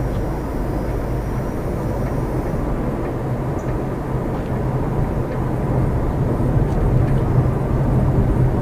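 Steady low mechanical rumble of vehicle noise, growing a little louder in the second half, with no distinct knocks standing out.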